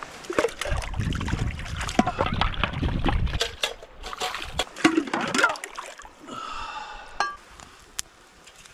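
Water splashing and sloshing as a plastic cup and a spoon are swished and rinsed in shallow water.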